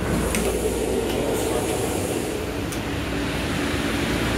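Steady rumble and hum inside a Long Island Rail Road M9 electric railcar, with a couple of faint clicks.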